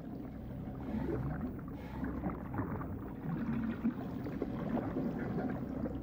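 Low, rumbling gurgle of water moving through a narrow tube, steady with irregular swirls, as water is drawn up the trunk's water-carrying pipes.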